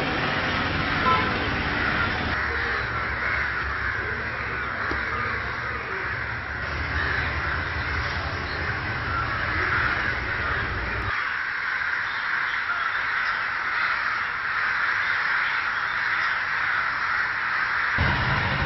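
Many crows cawing at once, a dense, continuous din. A low rumble underneath cuts off about two-thirds of the way through.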